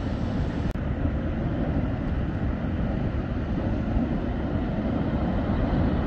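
Steady low rumbling background noise with no voices, broken by a split-second dropout about a second in.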